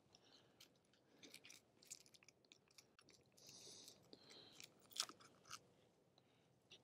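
Near silence, with faint scattered small clicks and a brief soft rustle, the sharpest click about five seconds in.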